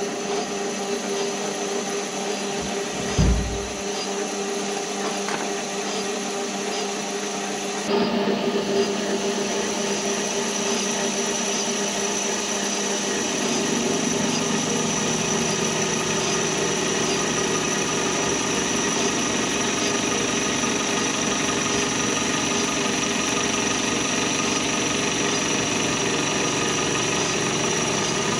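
Small metal lathe running under power, with a steady machine whine, while the tool takes a 20-thousandths cut on an aluminium wheel spacer and throws off long stringy chips. There is a short thump about three seconds in, and the sound steps up about eight seconds in.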